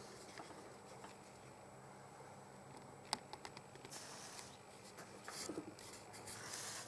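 A faint, quiet workbench with one small click about three seconds in, then brief soft hissing as the soldering iron's tip, loaded with solder, touches the flux on the whitemetal part.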